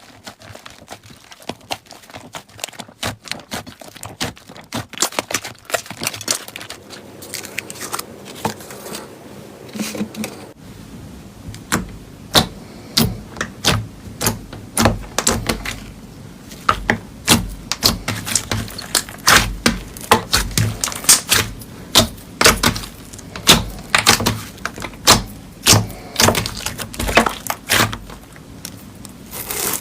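Slime being squished and pressed by hand, giving a rapid series of sharp wet pops and clicks. The pops grow denser and louder from about ten seconds in.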